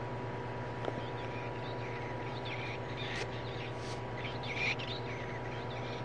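Recorded bird call played through the small speaker of a Wild Republic Audubon plush bird's squeeze sound box: a run of chirps and twitters lasting about three seconds, with a click about a second in, over a steady hum.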